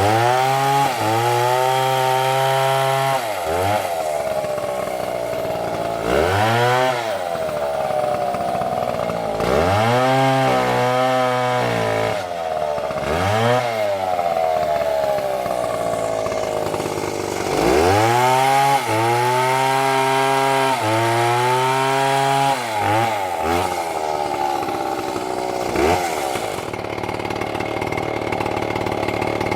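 Two-stroke Stihl chainsaw cutting a tree down, its engine revved up to a high whine in three long stretches of several seconds each, with two brief throttle blips. Between the stretches it drops back to a lower pitch.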